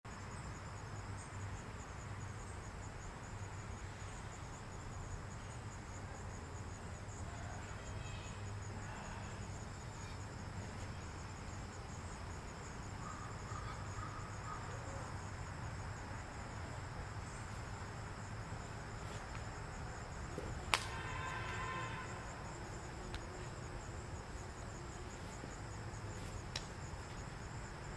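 Insects trilling steadily at two high pitches over a low background rumble. About three-quarters of the way through comes a single sharp click, followed by a brief pitched sound.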